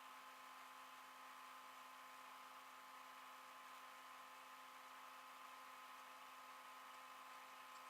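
Near silence: a faint, steady hum with a few unchanging tones over a light hiss.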